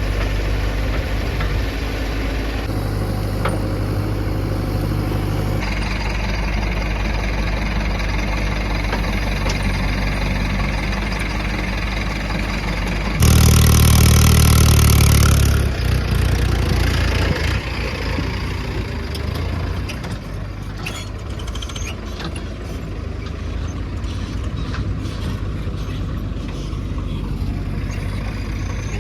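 Heavy diesel engine running steadily, rising to a loud, hard rev for about two to three seconds about halfway through, then settling back to a lower, quieter run.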